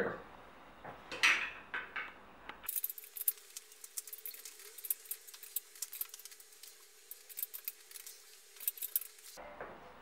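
Light, irregular metallic clinks and ticks of a size 18 wrench working on the front axle bolt of an electric scooter, with one louder knock just over a second in. The bolt is stuck really tight and will not come loose.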